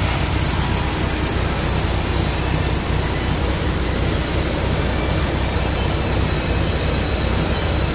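MGB four-cylinder engine with a Weber DCOE sidedraft carburettor idling steadily but rough and uneven. Cylinders 1 and 4 are hardly firing at idle, so the engine is running mostly on cylinders 2 and 3.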